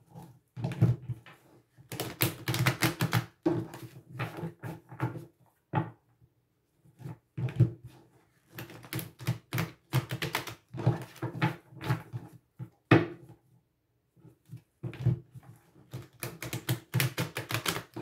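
A deck of cards being shuffled by hand: bursts of rapid card-edge flicks and slaps, with a couple of short pauses.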